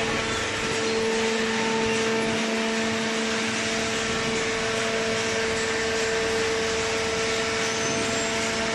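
Hydraulic baler's electric motor and pump running with a steady hum that holds one pitch.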